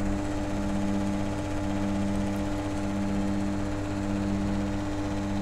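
Metal lathe running with a steady mechanical hum, its low, even pitch wavering slightly about once a second.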